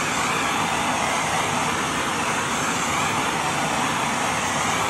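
Handheld butane torch flame hissing steadily as it is passed over freshly poured epoxy resin.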